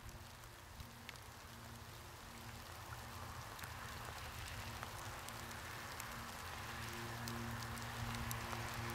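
Steady rain falling, with scattered sharp taps of single drops, fading in and growing steadily louder.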